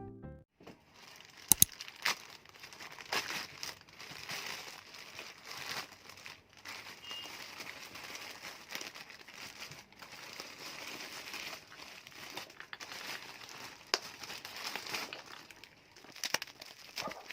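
Steady, faint crinkling and crackling with scattered sharp clicks and taps, a pair of louder clicks about a second and a half in.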